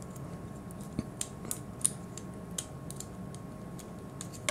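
Small plastic parts of an Iron Factory Dubhe transforming robot figure clicking and scraping as they are worked into place and pegged together. It is an irregular scatter of light clicks.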